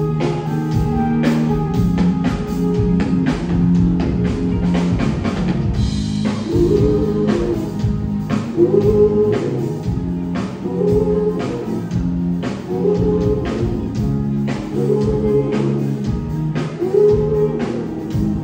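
Live band playing: electric bass and drum kit keep a steady groove, and from about six seconds in a lead line repeats a short wavering phrase roughly every two seconds.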